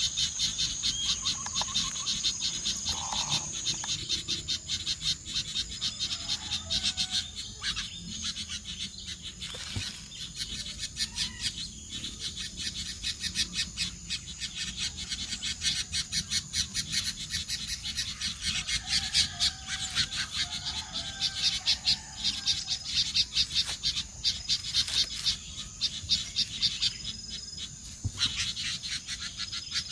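Dense chorus of insects: a rapid pulsing buzz with a steady high-pitched trill that is loudest for the first few seconds, with a few faint, short bird calls scattered through.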